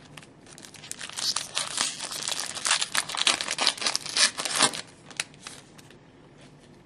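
Foil wrapper of a hockey trading-card pack crinkling and tearing as it is handled, in a dense crackly run of about four seconds, followed by a single click.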